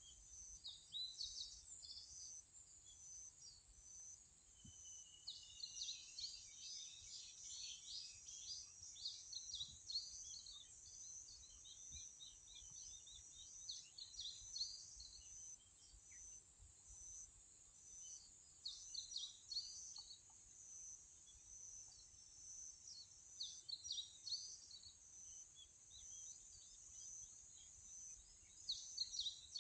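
Faint birdsong: small birds chirping in short clusters of rapid notes every few seconds, over a steady high-pitched drone.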